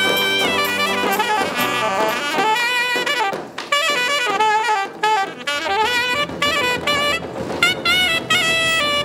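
Alto saxophone playing a lively melody of held and moving notes, with short breaks between phrases, over a beat from large double-headed bass drums.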